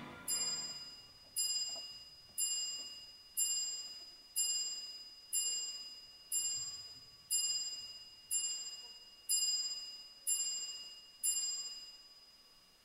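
A clock chime strikes twelve times, about once a second, the toll of midnight. Each stroke is bell-like, sharp at the start and ringing away before the next.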